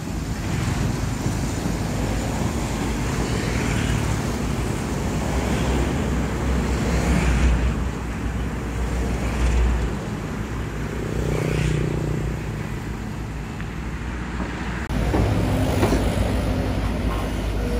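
Kobelco SK200 crawler excavator's diesel engine running under load as it digs mud, the sound swelling and easing every couple of seconds with the strokes of the boom and bucket.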